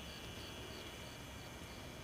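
Faint insect chirping in an even rhythm, about three short high chirps a second, over a steady high buzz and a low rumble.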